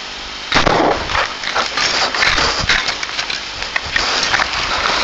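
Shotgun shots at close range overloading a head-mounted camera's microphone: a sudden loud blast about half a second in, then a run of sharp bangs and knocks over constant rustling.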